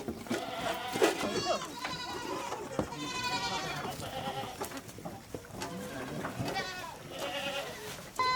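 Several goats bleating repeatedly, their wavering calls overlapping one another.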